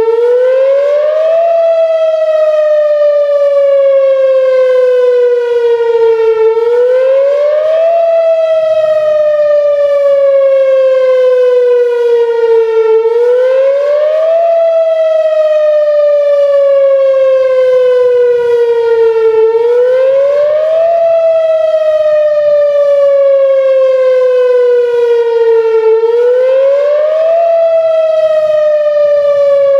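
Whelen Vortex R4 "Finback" electronic outdoor warning siren sounding its wail tone. The pitch rises quickly, then falls slowly, over and over at about six and a half seconds a cycle. Its loudness holds steady instead of sweeping because the siren's rotator is broken.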